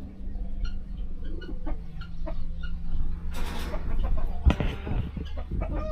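Farmyard fowl clucking in short, scattered calls. A brief noisy burst comes a little past halfway, followed by a few knocks.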